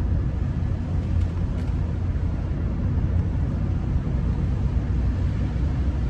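Steady car interior noise while driving: a low rumble of engine and tyres on a wet road.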